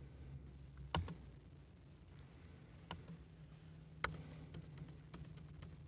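Computer mouse and keyboard clicks: a single click about a second in, another two later, then a quick run of clicks near the end, over a faint low hum.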